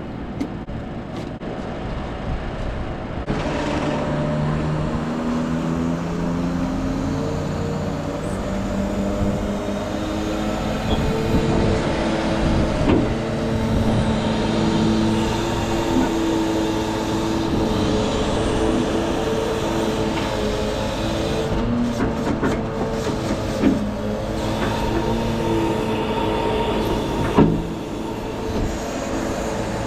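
HIAB loader crane in use on a Volvo FE 320 truck: the engine runs at raised revs to drive the crane's hydraulic pump, and the whine steps up and down in pitch as the boom swings and lowers a bulk bag. A few sharp knocks from the grab and load come in the last third, the loudest near the end.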